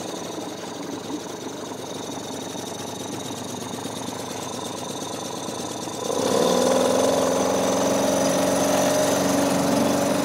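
Outboard motor pushing an inflatable PVC boat, running steadily. About six seconds in, the throttle is opened: the engine note rises a little and gets louder, then holds.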